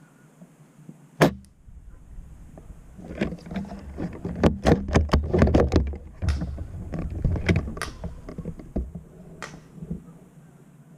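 Airsoft gunfire: one loud sharp shot about a second in, then an irregular string of rapid sharp cracks from about three to nine and a half seconds in, over a low rumble.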